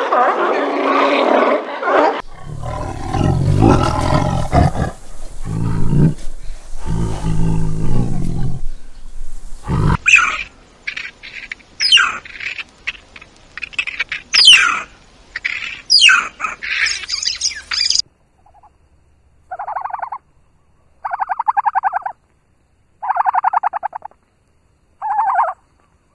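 A sequence of wild animal calls. First a fur seal colony calls, with many bleating and growling voices overlapping and turning to lower, rough growls about two seconds in. Then a meerkat gives a run of sharp chirps and clicks, followed near the end by four or five short buzzy calls with gaps between them.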